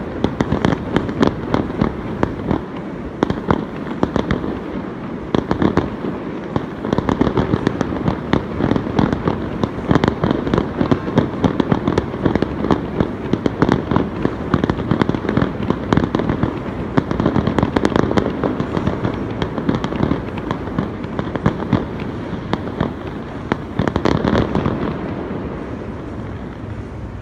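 Fireworks display: a dense, unbroken run of sharp bangs, dying away near the end.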